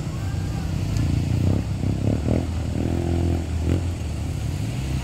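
Steady low rumble of an idling truck engine close by, running on without change.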